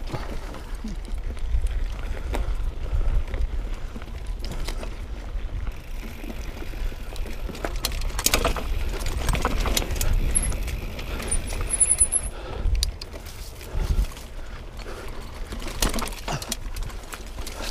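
Mountain bike ridden over rough singletrack of roots and rocks: a steady low rumble from the tyres, broken by frequent knocks and rattles from the bike.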